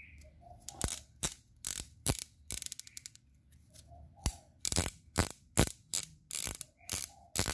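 Steel spanners clinking and knocking against each other as they are handled and set down: a string of sharp, irregularly spaced metal clicks.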